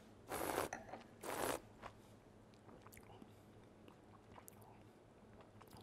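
A taster slurping red wine, drawing air through a mouthful to aerate it: two short hissing slurps about a second apart, followed by faint small mouth clicks.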